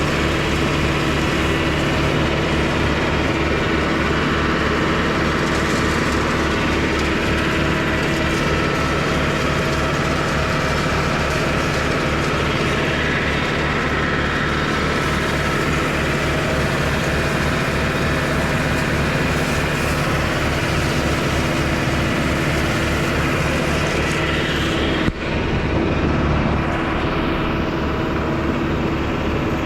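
Concrete pump's engine running steadily with a fast, even low pulsing, under a constant hiss from the high-pressure washout water hose. There is one sharp click near the end.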